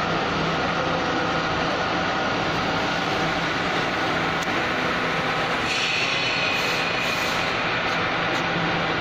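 Steady factory machinery noise with a low hum running underneath, and a higher hiss joining in for about a second and a half around six seconds in.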